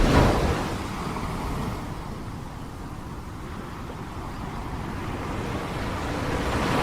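Sea waves washing in, loud at first, dying away, then building again near the end, with some wind noise on the microphone.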